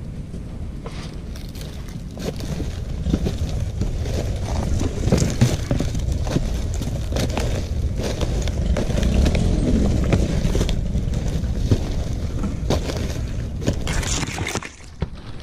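A climber's rope lanyard and boots scraping, rustling and cracking against the dry old leaf bases on a palm trunk during a climb, with many short scrapes and snaps over a steady low rumble.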